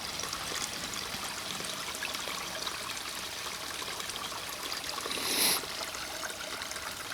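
Small stream running over rocks: a steady rushing and splashing of water. A brief louder hiss rises and falls about five seconds in.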